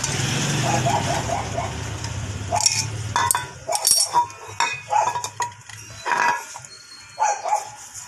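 A dog barking repeatedly in short, irregular barks, with a few sharp metallic clinks in between. A steady low hum with hiss underlies the first two or three seconds.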